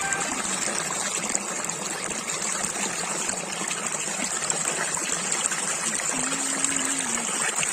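Water flowing and trickling steadily in a small stream.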